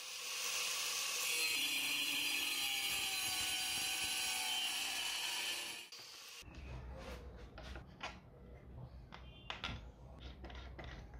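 Angle grinder running with its disc grinding down the end of a black plastic pipe, a steady grinding noise that stops abruptly about six seconds in. Then a series of light clicks and knocks as the angle grinder is handled and fitted into a cut-off stand, over a low hum.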